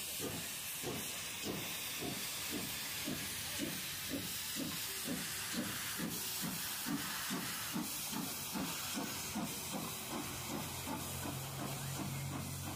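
Wood-fired steam locomotive, a 1945 American-built engine, pulling away under steam: rhythmic exhaust chuffs about two to three a second, getting quicker, over a steady hiss of steam. A low steady hum comes in near the end.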